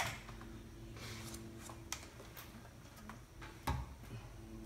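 Faint clicks and knocks of a power plug and cords being handled, with one louder knock near the end, over a low steady hum.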